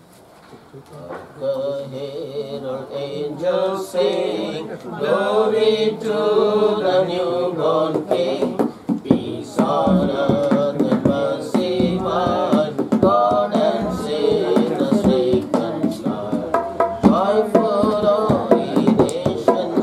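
Gospel worship song: singing that comes in about a second in, with drum beats joining from about eight seconds in.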